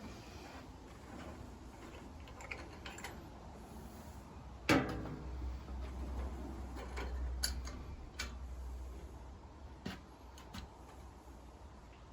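Metal parts being handled on the bench: a single clank with a short ring about five seconds in, then a few light, scattered clicks and taps.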